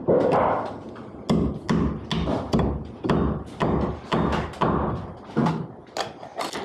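A series of sharp thuds, about two to three a second, irregularly spaced, each dying away quickly.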